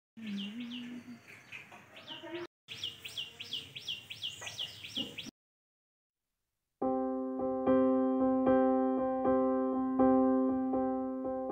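Birds chirping, a quick series of short high calls, for about five seconds. After a short silence, background electric-piano music starts, with notes struck in an even, repeating pattern.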